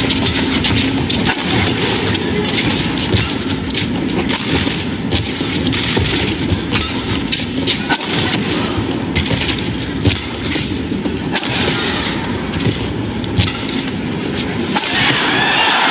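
Badminton rally in an arena: sharp racket hits on the shuttlecock at irregular intervals over a loud, continuous crowd din, which swells near the end.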